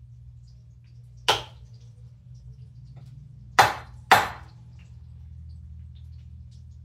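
Three sharp knocks from kitchen work at the counter: one about a second in, then two close together a little past halfway. A low steady hum runs underneath.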